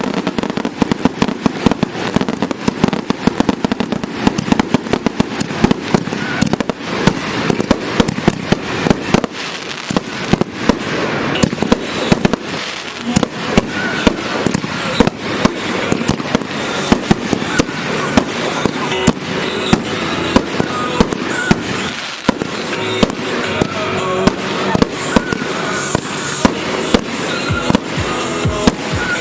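Fireworks display: a dense, continuous barrage of shell bursts and crackling, many reports a second, with music playing underneath.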